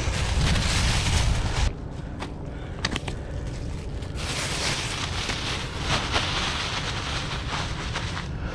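Wind buffeting the microphone, which drops off sharply just under two seconds in. After that come a few light clicks and rustling of paper and plastic as a package of snelled hooks and fishing rods are handled.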